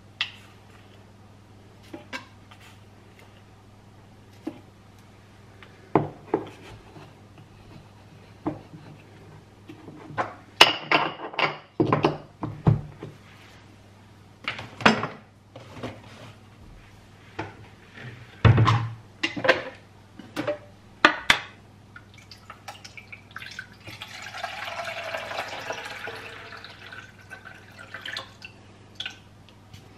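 Clicks, taps and clatters of a coffee jar, a spoon and the parts of a drip filter coffee maker being handled as ground coffee is scooped in, busiest around the middle. Near the end, water is poured from a plastic jug into the coffee maker's reservoir for a few seconds.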